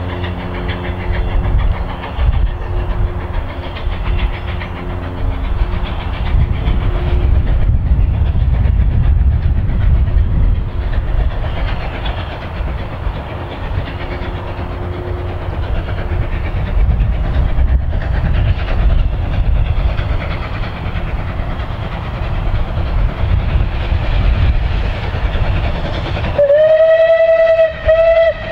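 Steam locomotive working toward the listener, its exhaust a steady low rumble. Near the end comes one loud steam whistle blast lasting about two seconds.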